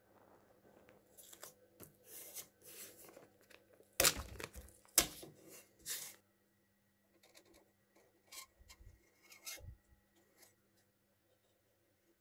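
Masking tape being handled, crinkling and tearing, with a few loud sharp rips around the middle. Softer rustling follows as the tape is pressed down and smoothed by hand.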